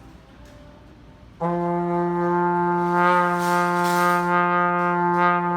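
Trombone playing a long, steady concert F with the instrument at room temperature. The note starts about a second and a half in and holds one pitch throughout, growing brighter near the middle.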